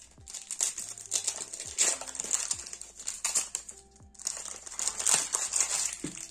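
A foil trading-card booster pack crinkling in rapid crackly bursts as hands tear it open, with a short lull about four seconds in.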